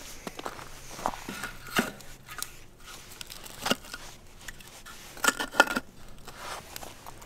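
Pieces of split firewood set down and handled by hand around a small kindling flame, giving scattered light wooden clacks and crackles, with a sharper cluster of knocks about five seconds in.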